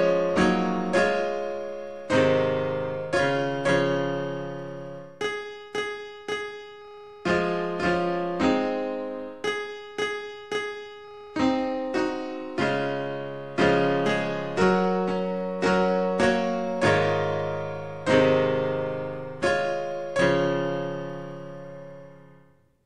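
Slow solo piano music: single notes and chords struck and left to ring and fade, a new one every half-second to second. The music fades out near the end.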